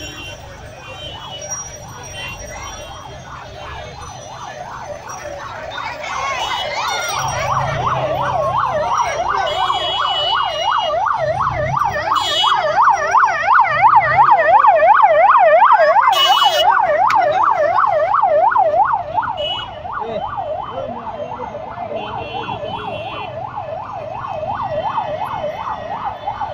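Electronic siren in a fast yelp, its pitch sweeping quickly up and down. It grows louder, peaks near the middle and falls off sharply about two-thirds of the way through, as if passing close by.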